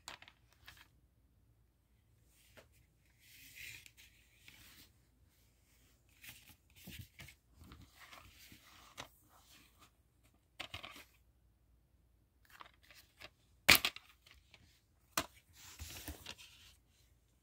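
Plastic shrink-wrap being torn and peeled off a DVD case in scattered rustles. Near the end the plastic case snaps open with a sharp click, the loudest sound, followed by a second click and more rustling.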